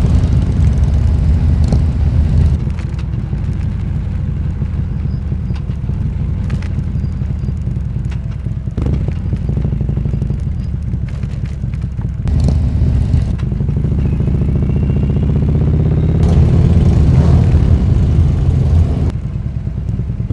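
Touring motorcycle engine running at road speed, with wind rumble on the microphone. About three-quarters of the way through the engine note rises and gets louder as it accelerates, then drops back shortly before the end.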